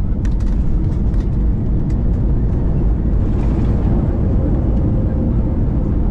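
Cabin noise of an Airbus A321neo on its landing roll: a loud, steady rumble of the CFM LEAP-1A engines and wheels on the runway as the airliner slows, with a few light rattles in the first couple of seconds.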